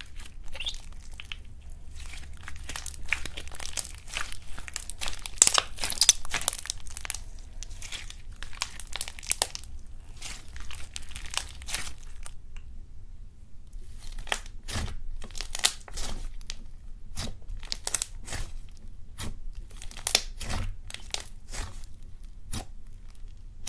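Fluffy white slime being stretched and squeezed by hand, crackling and tearing densely, then, after a short pause a little past halfway, pressed and poked in a run of separate sharp clicks and pops.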